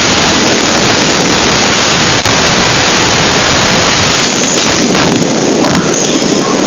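Strong wind blowing steadily and buffeting the microphone.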